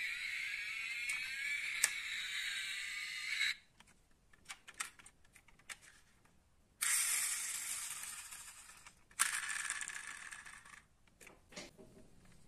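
Pull-back motor of a die-cast toy car whirring as its wheels spin freely after being wound, in three runs. The first cuts off suddenly after about three seconds, and the next two fade out. Light clicks of the metal model being handled come in between.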